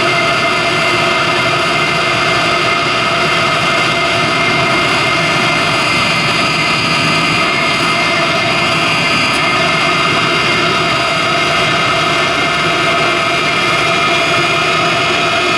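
Chinese diesel heater running steadily, firing on a fuel that is mostly 10W-30 engine oil with some diesel. The burner and blower fan make an even roar, with a steady whine held over it.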